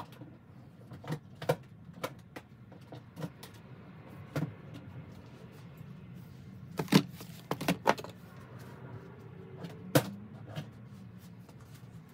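Irregular clicks and taps of makeup palettes and compacts being handled and set down, with two louder knocks about seven and ten seconds in.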